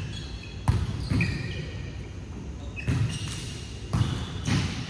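A volleyball being struck and hitting the court, four sharp thuds with a short echo after each, and short high-pitched squeaks of players' shoes on the indoor court floor between them.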